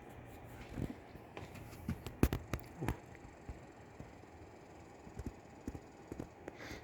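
Irregular footsteps and small knocks, thickest about two seconds in and picking up again near the end, over a low steady background.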